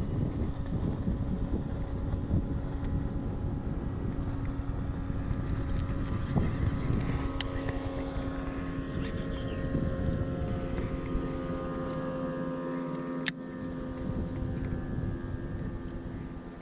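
Electric trolling motor on a bass boat humming steadily at a constant pitch, with low wind and water rumble on the microphone. A single sharp click sounds about 13 seconds in, after which the low rumble drops away.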